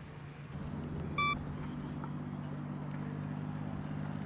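A steady low mechanical hum, like an engine running at idle, with a single short electronic beep about a second in.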